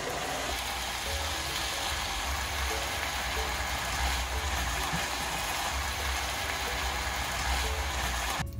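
Stir-fried noodles, cabbage and pork sizzling in a hot frying pan as tongs toss them, a steady hiss with a low hum underneath. The sound cuts off suddenly near the end.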